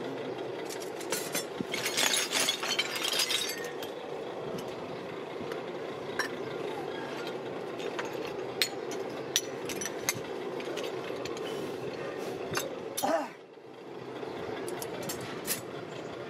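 Metal tongs and rods clinking and clattering by hand, with a cluster of rattling early on and single sharp clinks now and then, over a steady hum that dips briefly near the end.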